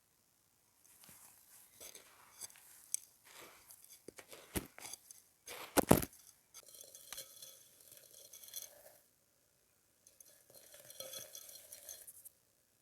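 Dry, dusty clay from a sun-baked clay pot crumbling and crunching, with gritty crackles and two sharp snaps near the middle, the second the loudest. After a short pause near the end, another bout of crunching follows.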